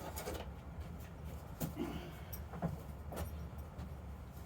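A few faint clicks and knocks of objects being handled, over a low steady hum.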